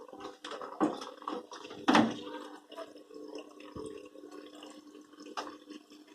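Water trickling and dripping into an IFB front-load washing machine's open detergent drawer as the machine fills, over a faint steady hum. There are scattered small clicks and a few sharper knocks, the loudest about two seconds in.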